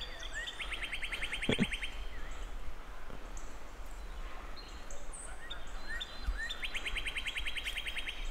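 Birds and insects calling outdoors. A fast, even chirping trill about a second long is heard twice, over scattered high chirps, with a brief knock about one and a half seconds in.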